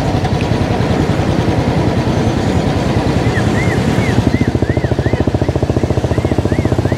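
Motorcycle engine running while riding along a road. About three seconds in, a warbling electronic tone starts, rising and falling about three times a second.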